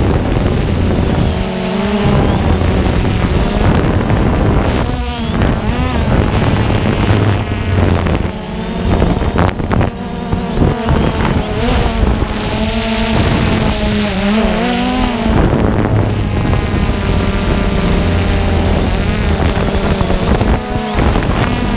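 DJI Phantom 2 quadcopter's brushless electric motors and propellers buzzing close up, heard from the camera on the aircraft itself. The pitch keeps wavering up and down as the motors speed up and slow down to steer the drone.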